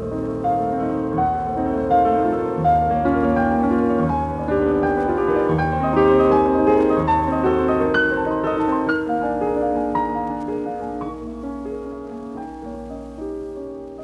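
Background piano music: a run of held notes over a low bass line, growing quieter toward the end.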